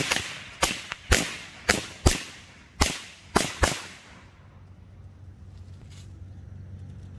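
Phantom Thunder Bomb firecrackers going off one after another: about nine sharp bangs at uneven intervals, stopping about four seconds in.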